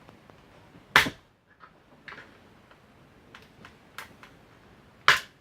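Two sharp knocks about four seconds apart, with a few lighter clicks between: a hole being punched through a part with a tool.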